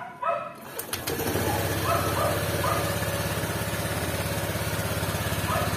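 Honda Click scooter's single-cylinder engine starting about a second in, right after a short click from the starter, then idling steadily with an even pulse. The fuel pump had been left to draw fuel through the new filter first, so the engine catches on the first press of the starter.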